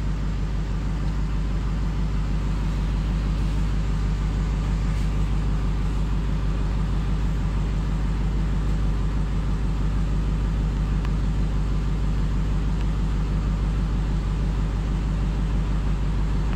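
Steady low drone of vehicle cabin noise, a constant engine and road rumble, with no change in level.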